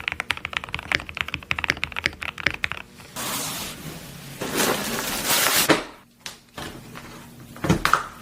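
Typing on a mechanical keyboard with Gateron Oil King linear switches: rapid key strokes for about three seconds, followed by a stretch of hissing noise and a couple of knocks near the end.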